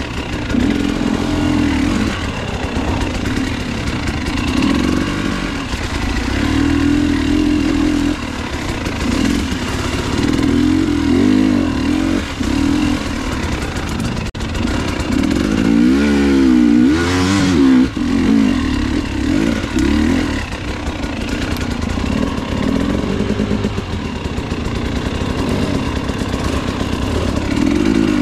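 A motor vehicle engine, loud and close, revving up and down over and over, its pitch rising and falling every second or two. About two-thirds of the way through the revs waver quickly up and down.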